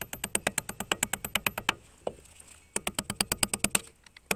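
A short stubby sledge hammering rapidly, about eight blows a second, driving a steel roll pin into the inner CV joint of a Subaru front axle. There are two runs of blows with a short pause between.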